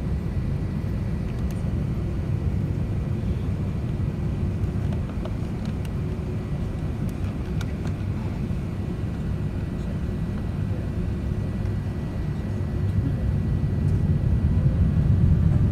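Cabin noise inside an Airbus A380 rolling along the ground: a steady low rumble from the engines and airframe, with a thin steady high tone above it. The rumble grows louder over the last few seconds.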